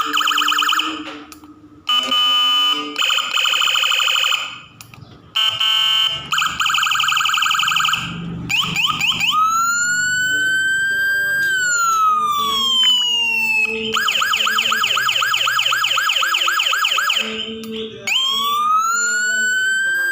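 Electronic vehicle siren module carrying Whelen, Senken and Landun tones, switching between patterns. It opens with short bursts of fast pulsing warble separated by brief dips. About ten seconds in comes a slow rising and falling wail, then a rapid yelp, and a second wail rises near the end.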